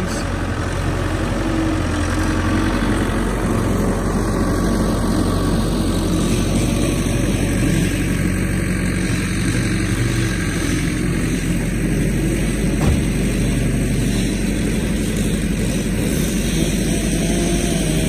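Skid steer engine running steadily close by as the machine moves off from the truck.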